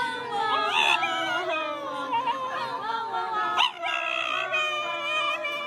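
A dog howling in long, drawn-out wavering notes, with a brief break and a sharp upward yelp a little past halfway before the howl resumes.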